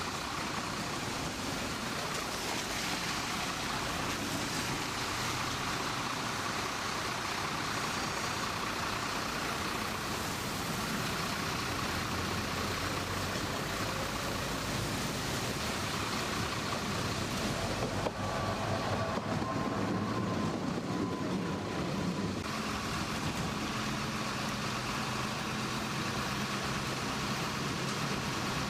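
Steady street traffic noise with a tram passing. About two-thirds of the way through there is a sharp click, then a few seconds of a faint steady whine that fades.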